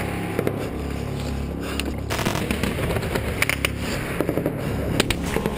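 Gunfire in a firefight: several irregular sharp cracks of rifle shots.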